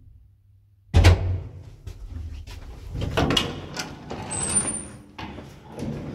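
Swing-type metal landing door of an old Zremb lift being pushed open by hand and swinging shut: a sudden loud clunk about a second in as it unlatches, then knocks and rattles with a brief high squeak midway.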